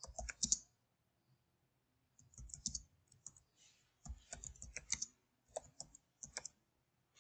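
Computer keyboard typing: short runs of keystroke clicks, with a pause of about a second and a half after the first run.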